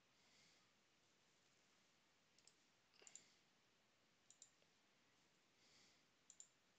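Near silence with faint computer mouse clicks, mostly in quick pairs, four times over a few seconds.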